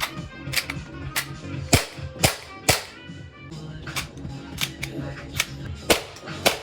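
CO2-powered airsoft handgun firing single shots: about ten sharp cracks, irregularly spaced half a second to a second apart, over background music.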